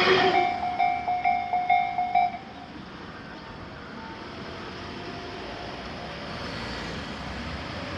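Japanese level-crossing warning bell ringing in quick repeated dings just after a passing train's noise dies away. The bell stops about two and a half seconds in as the crossing clears, leaving quiet outdoor background.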